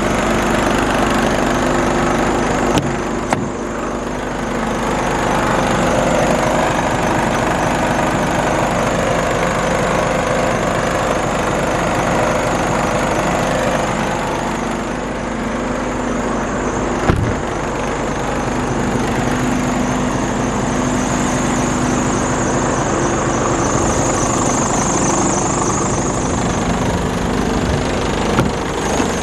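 Scania R410 Euro 6 truck's 13-litre six-cylinder diesel engine idling steadily. A few short clicks sound over it, one near the end as the cab door handle is pulled.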